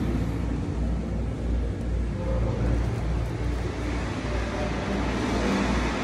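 Steady low rumble and hiss of indoor background noise, with no distinct event standing out.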